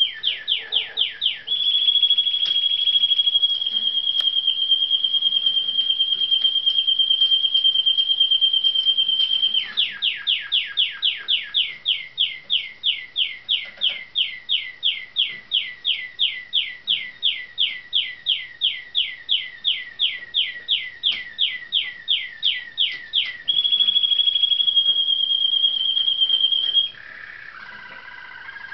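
Caged show songbird singing: a level, high, fast trill, then one downward-sliding note repeated about three times a second, some forty times in a row, then the level trill again and a few lower notes near the end. The long run of the same note is a song fault: the bird gets stuck repeating it.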